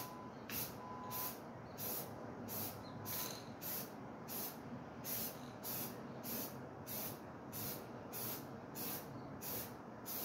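Aerosol can of flat white spray paint sprayed in short, quick bursts, about two a second, each a brief hiss.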